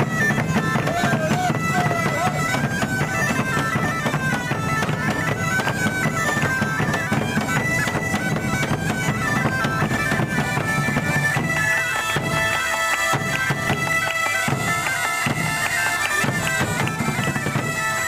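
Bagpipe music: a melody of held notes moving in steps over a steady low drone.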